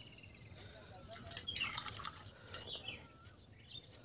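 Small birds chirping in short falling calls over a steady high-pitched whine, with a quick run of sharp clicks and clinks about a second in, the loudest sound, and one more click a little later.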